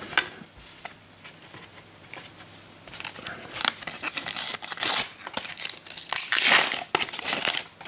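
Panini sticker packet wrappers crinkling and tearing as the next packet is opened. Short rustles, quiet at first and louder after about three seconds.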